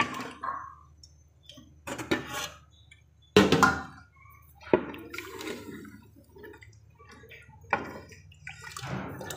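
Wooden spatula stirring thin kadhi batter in an aluminium pot: liquid sloshing, with several knocks and scrapes of the spatula against the pot. The loudest knock comes about three and a half seconds in.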